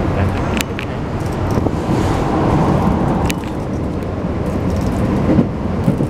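Interior running noise of a Keikyu New 1000 series train under way: a steady rumble of wheels on rails and car body, with a couple of sharp clicks.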